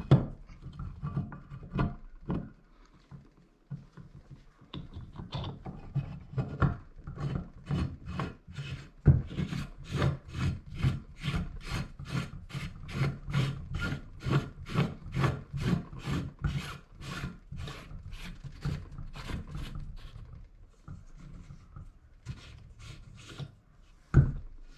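Hand-worked scraping and rubbing as the pedal drive's aluminium gear-housing cap is worked back into the drive housing, in a steady run of short strokes about two a second. A single louder knock near the end.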